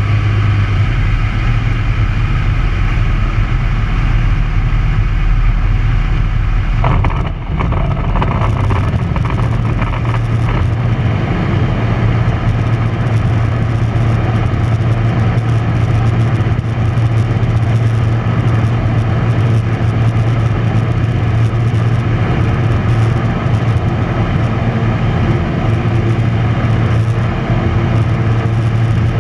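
Tecnam P92 light aircraft's engine and propeller running steadily at high power through takeoff and climb, heard inside the cockpit, with a brief dip in level about seven seconds in.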